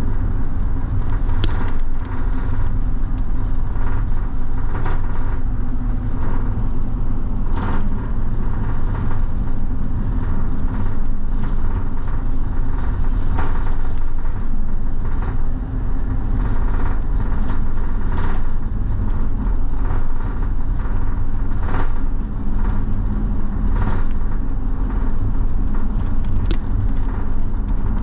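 Bus heard from inside the cabin while driving: a steady low engine and road rumble with a faint hum, and scattered small knocks and rattles.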